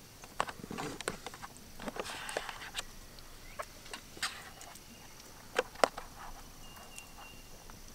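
Plastic spork scooping food from a paper MRE pouch: the pouch crinkles and the spork gives scattered light clicks, two sharper ones about five and a half seconds in.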